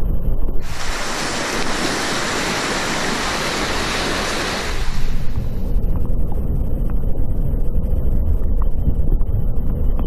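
Rushing whitewater of a river in flood, heard as a muffled low rumble and buffeting as a kayak runs big waves. From about a second in to about five seconds in, a loud, even hiss of churning water rises over the rumble, then drops back to the muffled rumble.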